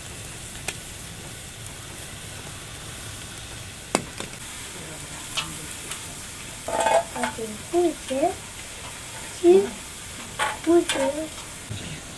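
Food sizzling and frying in a pan as it is stirred, a steady hiss with a few sharp clicks. In the second half come several short pitched, voice-like sounds.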